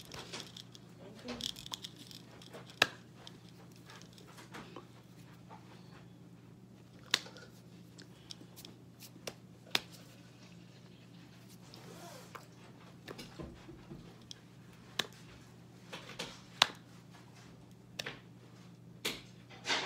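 Quiet room with a steady low hum, broken by scattered sharp clicks and knocks about every second or two.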